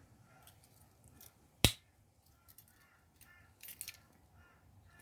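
A single sharp metallic snap about one and a half seconds in, a Victorinox Hiker Swiss Army knife's tool snapping shut on its slip-joint spring, followed by a few faint clicks of the knife being handled.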